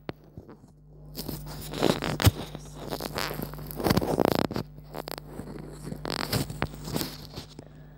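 Irregular scraping, rustling noises in short bursts, about two, four and six seconds in, over a faint steady hum.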